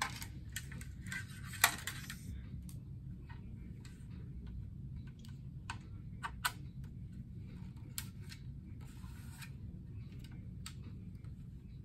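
Clicks, taps and rattles of a plastic ring light and its tripod stand being handled and fitted onto the stand's threaded mount, with one sharp click about a second and a half in and a few more scattered through, plus a brief rustle near the end.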